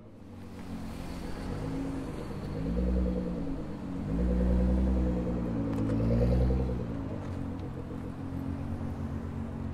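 Nissan GT-R R35's twin-turbo V6 through an Fi aftermarket exhaust, revved three times with the pitch rising and falling each time, then settling to a steady lumpy idle.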